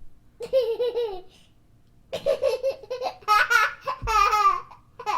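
A baby laughing in two bouts of rapid, bouncing laughter, the second longer and higher-pitched, with a brief laugh again near the end.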